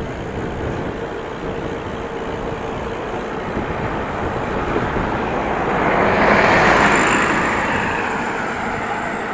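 Wind and road rumble on a moving bicycle's microphone, with a motor vehicle passing: it grows louder to a peak about two-thirds of the way through, then fades away.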